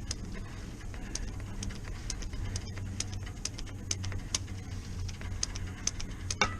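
Irregular light clicks and ticks of hand work at a blower motor's bearing grease fitting, over a steady low hum.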